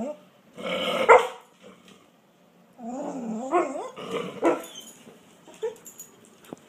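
Grey pit bull-type dog vocalising: a bark about a second in, then a wavering, rising-and-falling grumble and another bark, followed by light clicks and scuffles near the end.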